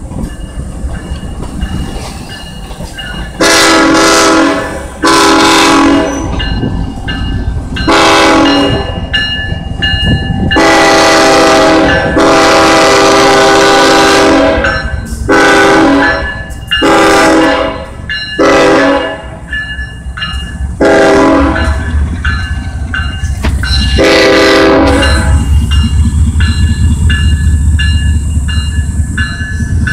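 Freight train passing: steel wheels clattering over the rails, then the Kansas City Southern de México locomotive's air horn sounding about ten loud blasts, one of them long, as a crossing warning. Near the end the diesel locomotive's low engine rumble swells as it goes by.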